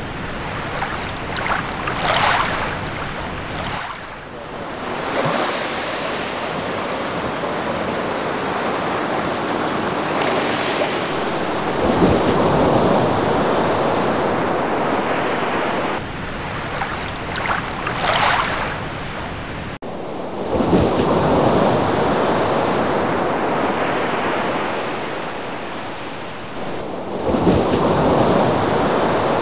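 Beach surf washing in, with wind buffeting the microphone. It is a steady rush that swells and eases, with abrupt jumps a few times.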